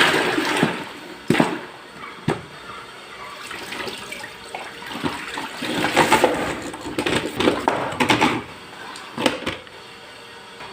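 Water rushing and splashing in uneven spells, with a few sharp knocks in between.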